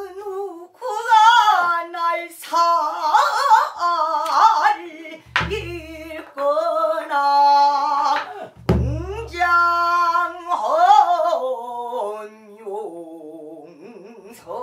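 Pansori singing by a woman, the voice wavering and sliding in pitch, accompanied by the gosu's buk barrel drum, which is struck twice, about five and nine seconds in.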